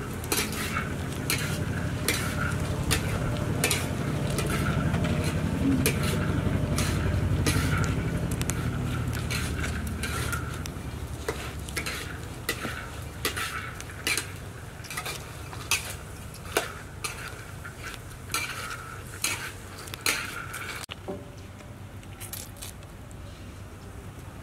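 Frogs being skinned and gutted by hand: short, sharp wet clicks and snaps repeated about once a second, over a low steady rumble that drops near the end.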